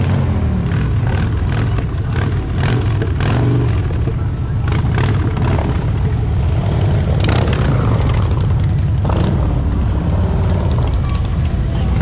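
Motor vehicle engine running low and steady, with people's voices and occasional knocks over it.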